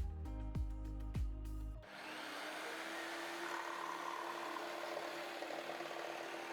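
Background music with a beat, cut off about two seconds in by an electric jigsaw running: a steady motor whine over a dense buzzing noise.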